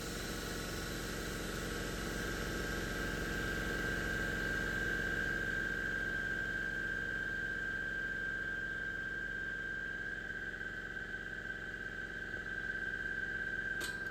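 A machine running steadily, with a constant high whine over a low hum; a short click near the end.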